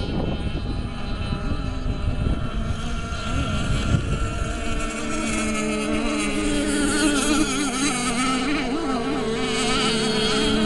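Radio-controlled racing boats running on the water: a high engine whine that wavers up and down in pitch, with a low rumble in the first half.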